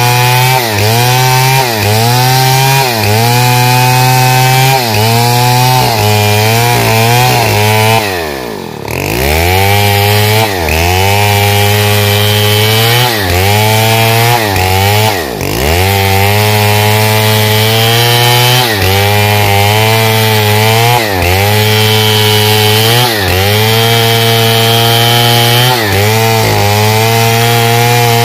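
Stihl 070 chainsaw's large two-stroke engine running hard as it rips a pine log lengthwise along the grain, its pitch sagging briefly every second or two under load in the cut. About eight seconds in the engine drops sharply in pitch and climbs back, and it dips sharply again once at about fifteen seconds.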